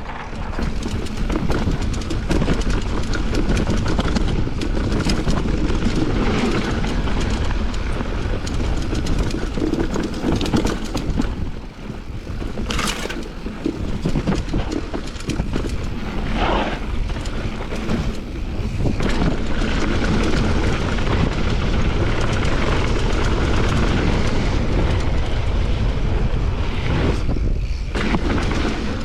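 Mountain bike running down a dirt bike-park trail: steady wind rush on the microphone and tyre noise, with scattered knocks from the bike over bumps and a brief lull about twelve seconds in.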